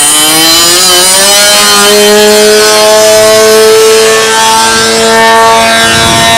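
Engine of a radio-controlled P-51 Mustang model plane running at high throttle, loud. Its pitch climbs over the first two seconds, then holds steady at high revs.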